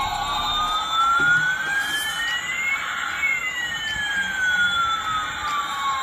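Electronic siren-like sound effect: two pure tones glide slowly in opposite directions, one rising and one falling, meet halfway through, then draw apart again.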